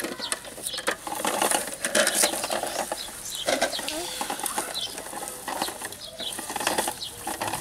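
Hard plastic toy trucks being handled on grass: irregular knocks and clatters of plastic, with rustling between them.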